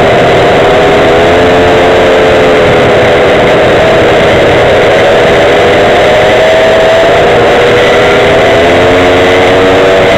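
Small gas engine of a Go-Ped stand-up scooter running under way, its pitch drifting up and down with the throttle. A steady rushing noise runs underneath.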